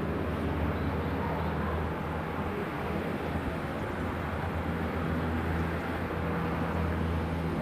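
Steady low outdoor rumble with a faint hum, unchanging throughout.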